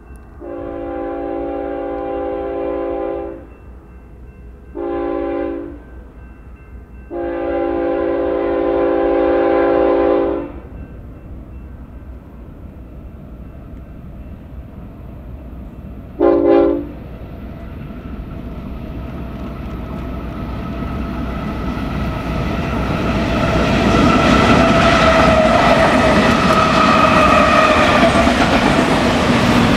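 Diesel freight locomotive of an eastbound BNSF train sounding its air horn in four blasts: long, short, long, and a last short one about six seconds later. After that comes the train's rumble and wheel noise, growing steadily louder as it approaches.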